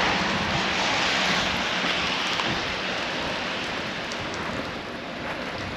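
Steady hiss of rain falling, slowly getting quieter.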